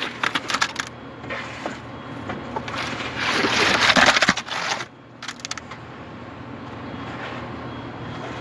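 Steel rebar bar scraping and knocking in a metal chute as wet concrete is pushed down it into a pier hole. A quick run of knocks near the start and a loud stretch of scraping around the middle.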